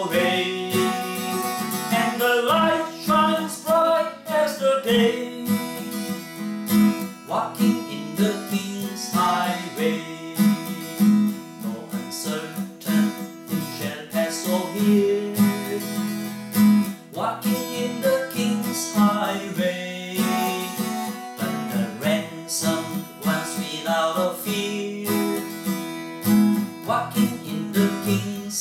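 Steel-string acoustic guitar strummed in repeated chord strokes, playing a hymn tune without words.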